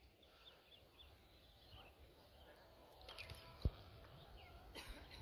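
Very quiet open-air ambience with faint small-bird chirps, and a single dull thump about three and a half seconds in.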